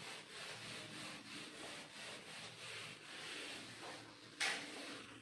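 A whiteboard duster rubbing across a whiteboard in repeated wiping strokes, with one short, louder stroke about four and a half seconds in.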